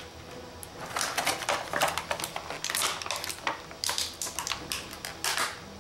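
Clear plastic packaging crinkling and crackling in irregular bursts as hands pull an action figure and its small plastic blasters out of it.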